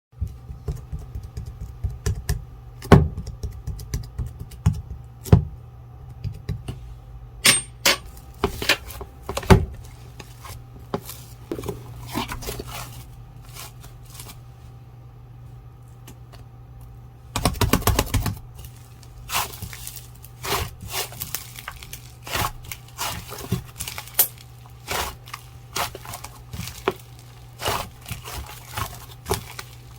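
Slime being squeezed, poked and stretched by hand, giving irregular sticky clicks, pops and crackles, with a quieter stretch about halfway through. A steady low hum runs underneath.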